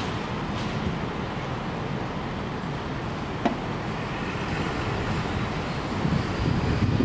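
Steady city traffic noise mixed with strong wind, and a single short click about three and a half seconds in. Near the end, gusts buffet the microphone with a low rumble.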